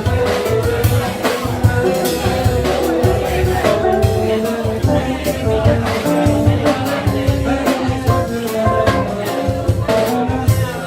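Brazilian band music with drums and bass keeping a steady beat under held instrument notes.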